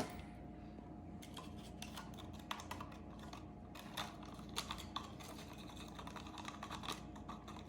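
Faint, irregular light clicks and taps of small objects being handled, a few louder ones scattered through.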